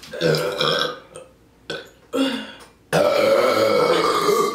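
A woman burping on purpose: a few short burps, then one long, loud burp lasting about a second and a half near the end, brought up by gulping fizzy ginger ale.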